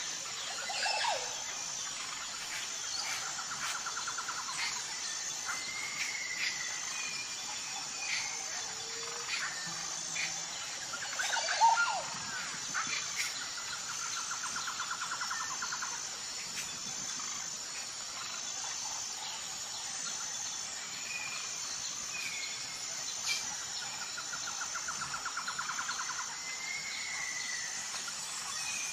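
Birds giving short whistled calls and rapid trills over a steady, high-pitched insect chorus that pulses in an even rhythm. One call about twelve seconds in is louder than the rest.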